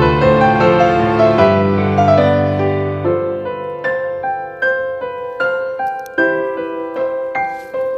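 Gentle background piano music: chords with a melody over a low accompaniment at first, thinning after about three seconds to single notes struck one at a time.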